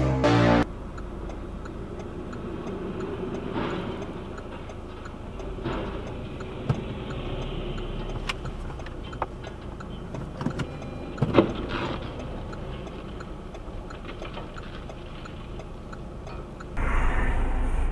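A steady low vehicle rumble with a faint, regular ticking and a few sharp clicks and knocks. A louder rush of noise starts near the end.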